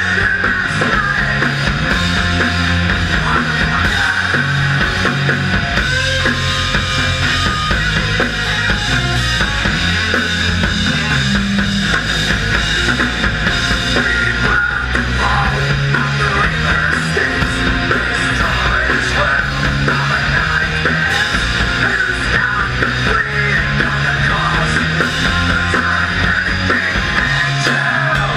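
Rock band playing live: electric guitars, bass and a drum kit playing together without a break.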